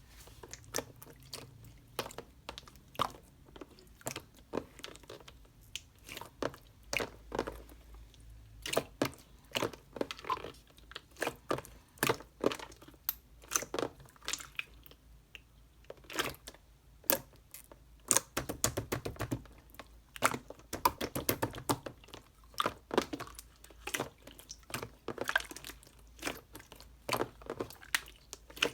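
A person chewing and crunching crisp food, with many irregular crackles and crunches.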